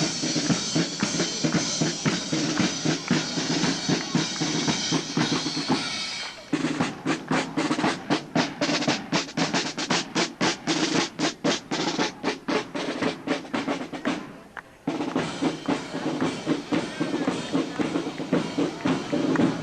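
Drumming with snare drum rolls and bass drum, dense at first, then about a third of the way in a run of distinct strokes several a second, a brief break, and dense drumming again.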